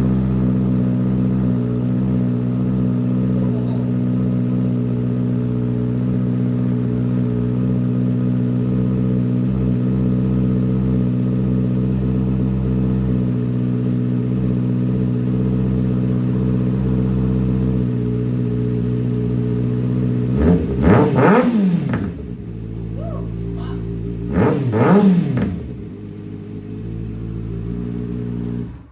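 2020 Kawasaki Ninja ZX6R's inline-four engine running through a freshly fitted M4 GP19 slip-on exhaust: a steady idle, then two quick throttle blips about 21 and 25 seconds in, each rising and falling back to idle. The sound cuts off near the end.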